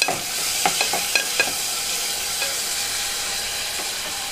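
A wooden spatula knocks and scrapes against the aluminium pressure cooker pan while chopped tomatoes and onions are stirred in hot oil. After about a second and a half of strokes, only a steady sizzle of the frying remains.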